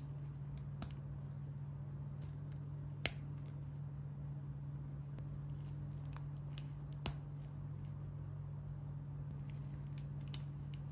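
Small plastic LEGO pieces clicking as they are handled and pressed together: a few sharp separate clicks, the loudest about three seconds in and about seven seconds in, over a steady low hum.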